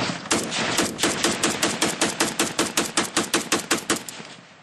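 A rapid, even train of sharp cracks, about five a second, dying away near the end.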